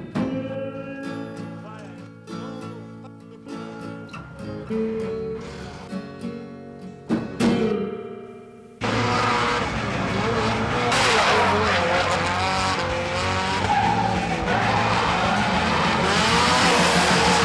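Guitar music for the first half, then an abrupt cut to a drift car's engine revving hard with tyres squealing, which carries on over the music.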